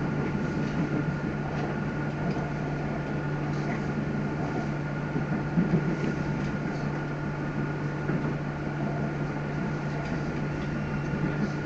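Interior running noise of a moving electric passenger train: a steady low hum with a constant thin high whine over it, and a couple of brief knocks about six seconds in.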